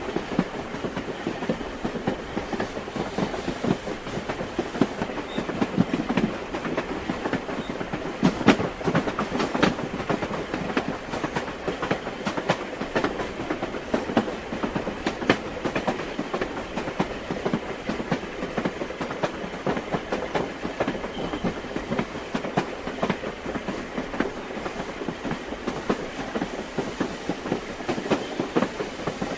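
Train wheels clicking over the rail joints as a moving railway carriage rattles along in a steady stream of small knocks. A few sharper knocks stand out about a third of the way in.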